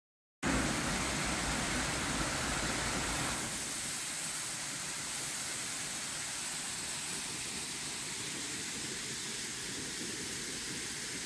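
Waterfall's steady rush of falling water, starting abruptly and cutting off sharply at the end. About three seconds in it becomes thinner and hissier, with less low rumble.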